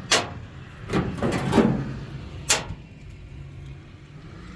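Sheet-metal patch panel being handled against the truck bed: a sharp knock, a clatter of knocks about a second in, and another sharp knock about halfway through.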